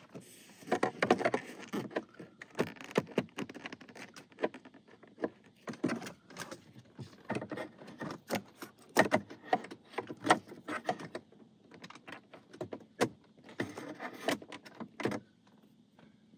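Lexus CT's plastic dashboard screen cover panel being worked loose by hand: a string of irregular clicks, knocks and rattles as its retaining clips are pushed in and the panel is shifted.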